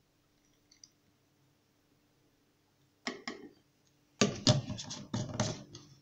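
Hard plastic laundry bottles and a measuring cap being handled and set down: after a quiet start, two sharp clicks, then a quick run of louder knocks and rattles.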